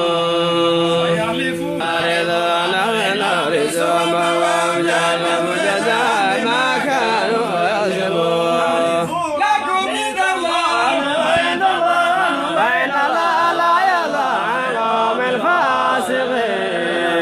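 A male voice chanting Qur'an verses in long, drawn-out melodic recitation, holding and ornamenting each note, with one short pause for breath about halfway through.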